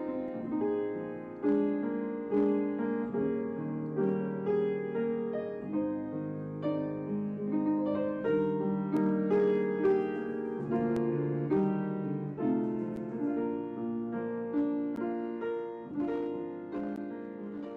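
Piano music: a slow melody of single struck notes, each ringing and decaying, over held lower notes, fading out at the end.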